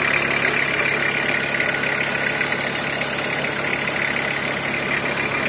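VW T4's 2.4-litre five-cylinder diesel engine idling steadily.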